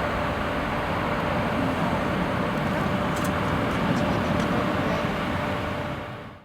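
Jet noise of a Bombardier CRJ-900's two General Electric CF34 turbofans at takeoff power: a steady, loud roar with a faint steady whine. It fades out quickly near the end.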